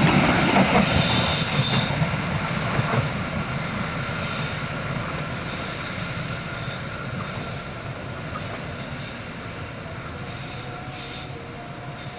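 Indonesian passenger train running past and away, its rumble fading steadily. High wheel squeal comes and goes from a few seconds in as the train takes the curve.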